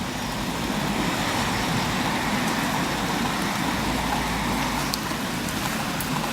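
Steady hiss of road traffic on a wet road, swelling slightly in the middle as a vehicle goes by.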